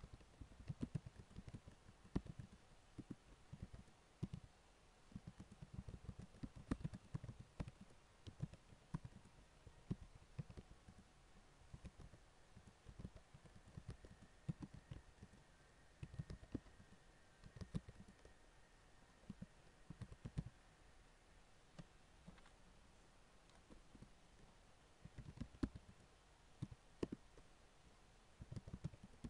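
Faint typing on a computer keyboard: irregular runs of soft key clicks and low thumps, broken by pauses of a second or so between bursts.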